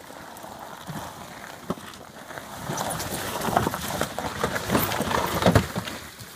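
Golf cart driving through a muddy creek: splashing and sloshing of mud and water mixed with thumps and clatter as the cart jolts over the ground, loudest from about three to five and a half seconds in.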